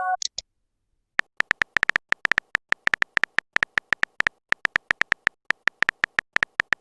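Typing-sound effect of a phone keyboard: short, sharp ticks, several a second at an uneven pace, starting about a second in. A brief high chime dies away at the very start.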